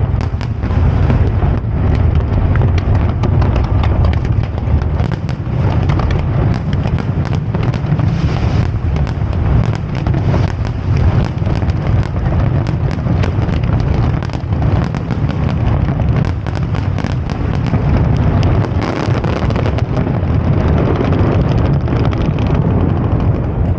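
Fireworks display: a dense, unbroken barrage of shell bursts and crackling bangs over a heavy low rumble, thinning slightly near the end.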